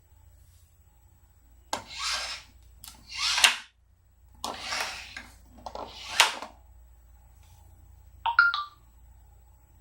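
Door hardware being worked: four short rattling, scraping bursts with sharp clicks, as of a smart lock's bolt and the door being unlocked and opened. Near the end a short electronic alert chirps once, like a phone notification.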